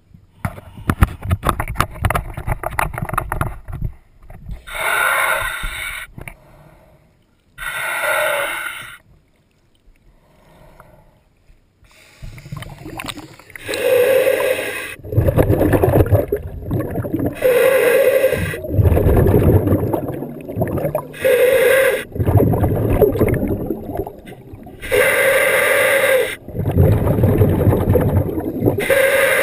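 Scuba diver breathing through a sidemount regulator underwater: a hissing inhale, then a low rumbling gush of exhaled bubbles. In the second half the breaths repeat about every three and a half seconds.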